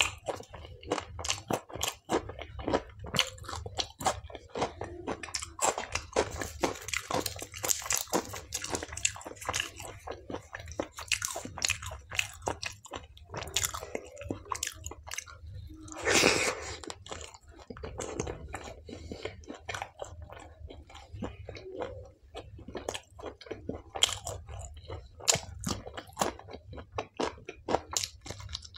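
Close-miked chewing and crunching of food, with many short mouth clicks throughout and a louder burst of crunching about sixteen seconds in.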